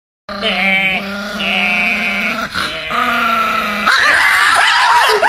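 A golden retriever vocalizing in long, wavering pitched calls, then, about four seconds in, a sudden switch to a man howling loudly in a high, wavering voice.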